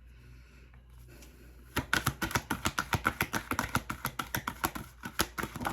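A deck of divination cards being shuffled by hand: a quick, even run of crisp clicks and slaps that starts about two seconds in and stops just before the end.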